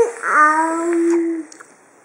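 A young child's voice: a short sliding vocal sound, then one sung note held for about a second.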